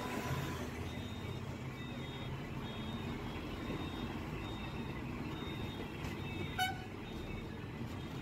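Heavy truck engines rumbling steadily as lorries pass through a highway junction, with a short horn toot about six and a half seconds in.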